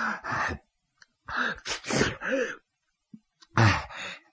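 A man's voice panting and gasping in heavy breaths, a storyteller acting out a fighter out of breath.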